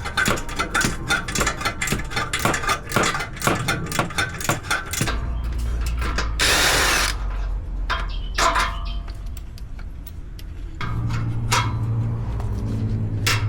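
Hand tools working on car exhaust bolts: rapid ratchet clicking and clanks, then a short loud hiss about six seconds in and a few knocks, with a steady low hum starting near the end.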